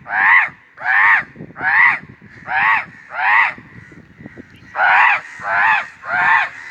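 A man imitating a crow, giving loud, harsh caws in a regular series: five caws, a pause of about a second, then three more. He is calling to draw the crows in.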